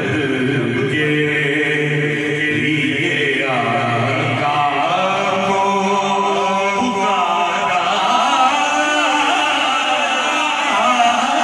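A man singing a naat, an Urdu devotional chant, into a handheld microphone: one long held note for the first three seconds or so, then phrases that bend up and down in pitch.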